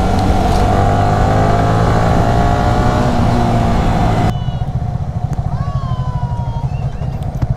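Yamaha R15's single-cylinder motorcycle engine running steadily under way, with a rushing noise over it that cuts off abruptly about four seconds in. A drawn-out high call sounds about five and a half seconds in.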